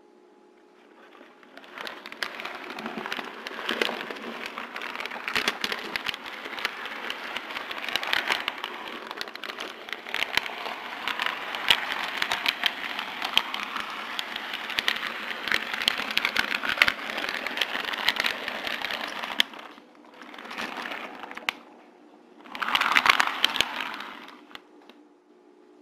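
HO scale model train cars rolling along the track, heard from a camera riding on one of the cars: a dense rattle of small clicks from the wheels on the rails. It starts about two seconds in, stops shortly before the end, then comes back in two short bursts.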